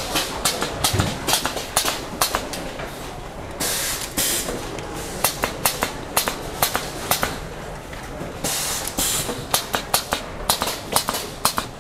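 Power bank assembly-line work: a steady run of sharp clicks and taps as casings, boards and hand tools are handled, with two short bursts of hiss about four and nine seconds in.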